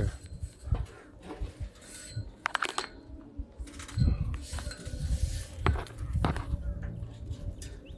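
Scattered light metallic clinks and knocks as a metal tube farm gate is handled and closed.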